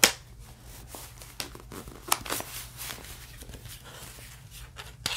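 Papers rustling and crinkling as a folder of papers is leafed through by hand, with a few sharp handling knocks, the loudest right at the start.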